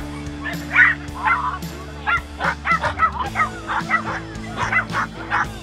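Jack Russell terrier barking in quick, high-pitched yaps, about two or three a second, excited during a disc warm-up, over steady background music.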